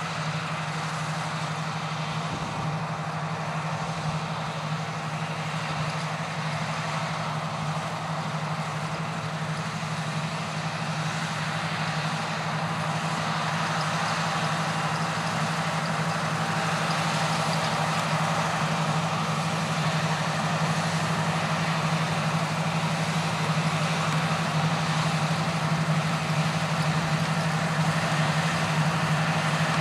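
Claas Lexion 460 combine harvester running steadily while cutting and threshing wheat: a constant engine hum under the broad noise of the working machinery, growing gradually louder.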